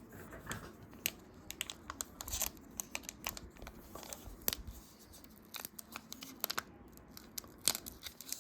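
Foil Pokémon booster pack being handled and torn open: irregular crinkling and small tearing crackles of the wrapper.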